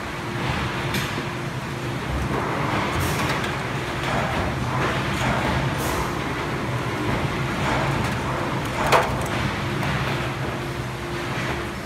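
Factory production-line machinery running with a steady hum, with short hissing bursts about every three seconds and a sharp clack about nine seconds in.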